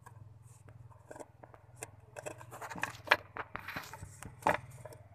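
Small metal parts of an opened car distributor being handled and fitted by hand: irregular light clicks and taps, with two louder knocks about three and four and a half seconds in.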